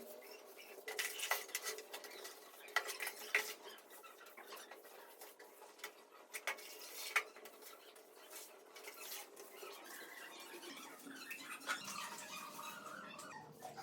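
Scattered light clinks and knocks of household objects being handled during cleaning, about a dozen sharp taps, most of them in the first half.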